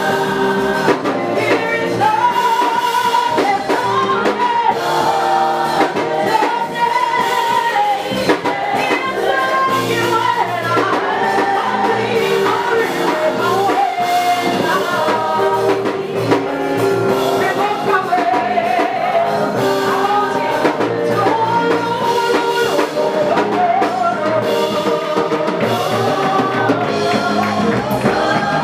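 Live gospel song: a group of women singing in harmony into microphones over a band with drums.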